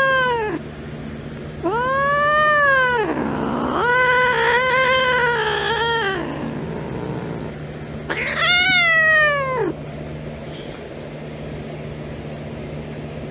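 Domestic cat yowling: a series of long, drawn-out meows. One ends just after the start, then three more follow, the middle one the longest and wavering in pitch.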